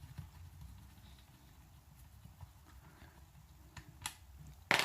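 Allen key and tools working the stock screw of an airsoft rifle out: a few faint ticks, then two sharp clicks near the end.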